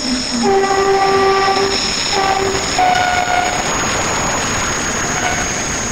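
WAP-7 electric locomotive's horn sounding as it leads a passenger train past at speed: a long blast on a lower note, a short repeat, then a blast on a higher note. Underneath is the steady rush and wheel clatter of the train running by.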